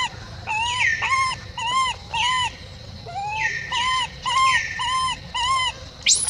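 Infant long-tailed macaque crying in a rapid series of short, arching whimpering calls, about two a second, some starting higher and sliding down. A sharper, high squeal comes near the end.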